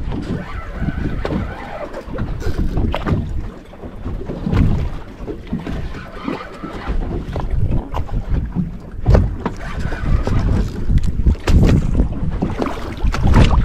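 Wind buffeting the microphone over water lapping and slapping against the side of a small boat, with a few sharp knocks against the hull.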